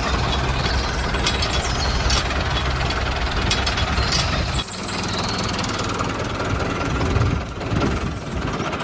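Small engine of a DIY mini tractor running steadily with a knocking rumble; the deep low end eases off about halfway through.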